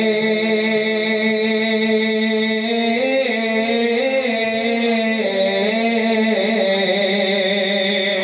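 A man reciting a naat unaccompanied into a microphone, drawing out one long melismatic note that wavers and steps down a little about five seconds in. A steady high tone sits underneath the voice.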